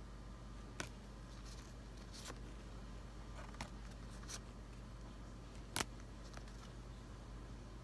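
Pokémon trading cards being leafed through by hand: a few faint sharp clicks and rustles of card on card, the loudest about six seconds in, over a low steady hum.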